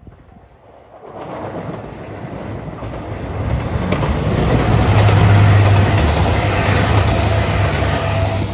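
JR Shikoku 2700 series diesel express multiple unit approaching and running past, its diesel engines giving a steady low drone, with a few wheel clacks over rail joints. The noise builds from about a second in and is loudest a little past the middle.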